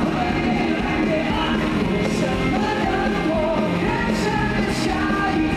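Live rock song: male vocals sung over acoustic and electric guitars with full band backing, amplified through a concert PA.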